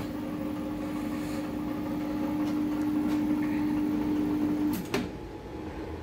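LG microwave oven running with a replacement magnetron fitted, giving a steady electrical hum; the repair is working. The hum cuts off almost five seconds in as the door is opened with a click.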